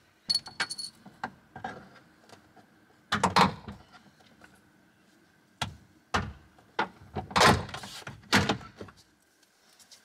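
Plastic push clips of a Fiat 500 door trim panel popping loose as the panel is pried off the door with a flathead screwdriver: a series of sharp cracks and clicks in clusters, with a short metallic ringing clink near the start.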